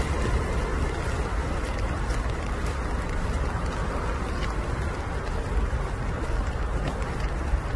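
Steady outdoor background noise: a low rumble under an even hiss, with no clear single event.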